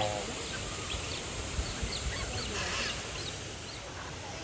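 Geese honking, with scattered chirps of other birds.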